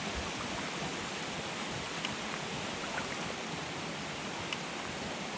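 Steady rush of water around a sea kayak being paddled, with a few faint drips and small splashes from the paddle strokes.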